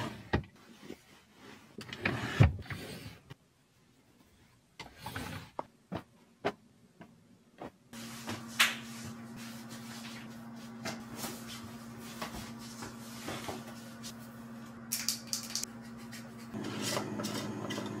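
Clothes being handled in a dresser drawer: fabric rustling with scattered knocks and clicks of the drawer. Later a steady low hum runs under a few light clicks, and near the end a louder steady noise comes in.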